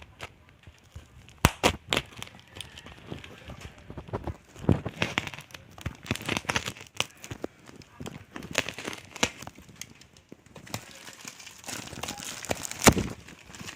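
Packaging being handled and unwrapped: plastic and paper crinkling and tearing, with irregular clicks and a few sharp knocks.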